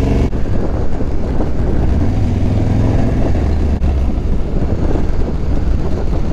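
Harley-Davidson Dyna Street Bob's air-cooled V-twin engine running steadily, heard on board while riding a rough dirt trail, with a deep low rumble under a noisy rattle from the bumpy ground.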